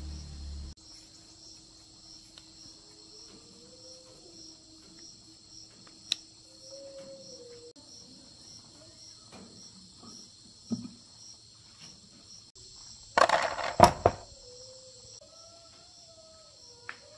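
An engine running stops about a second in, leaving a steady chorus of insects chirring. A few sharp clicks and a short, loud clatter come about three quarters of the way through.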